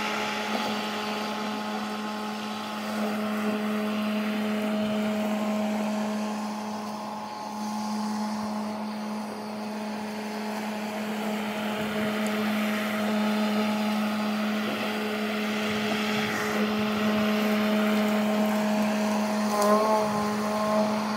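Battery-powered walk-behind lawn mower running steadily while cutting grass, a constant even hum with a slight wobble in pitch near the end.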